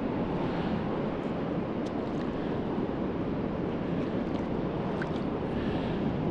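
Small waves lapping on a gravelly shoreline: a steady low rush of water, with a few faint ticks.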